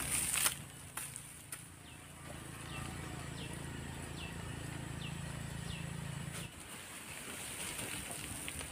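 A short blade chopping into weedy soil: a few sharp strikes right at the start and a couple more in the next second and a half. Then a bird repeats a short falling chirp about every half second, over a low steady hum that stops about six and a half seconds in. Near the end comes the rustle of an armful of cut weeds.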